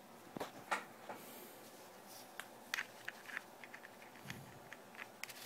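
Faint scattered clicks and light taps of handling as a cable is plugged into an Arduino Uno board, with one duller knock about four seconds in.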